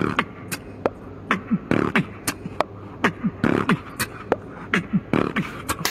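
Human beatboxing into a microphone: a steady rhythm of sharp snare-like clicks and deep kick-drum sounds that fall in pitch.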